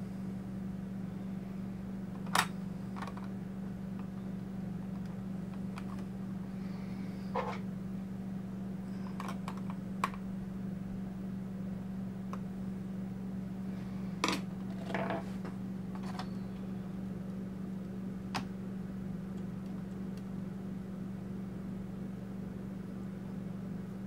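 Small sharp clicks and taps from hands and tools handling a laptop CPU and motherboard parts, scattered about ten times, the loudest about two seconds in and around fourteen seconds, over a steady low hum.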